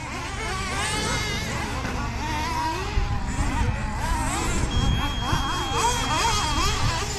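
Several gas-engined RC trucks running at high revs, overlapping whines rising and falling in pitch as they accelerate and back off around the track. A thin steady high tone joins in for about two seconds in the second half.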